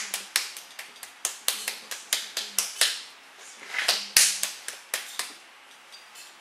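Quick series of sharp taps, about four a second, stopping about three seconds in; a short scrape and a few more taps follow around the four-second mark.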